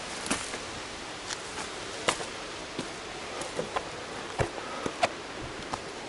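Footsteps crunching and knocking on loose stones and gravel down a rocky trail, in an uneven pace, over a steady background hiss.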